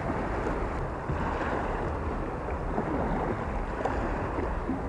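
Steady wind on the microphone with small waves lapping against a concrete edge.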